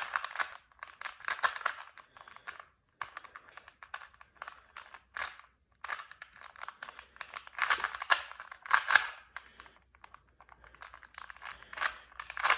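Plastic Rubik's cube being turned in quick runs of moves, the layers clicking and clacking in bursts with short pauses between.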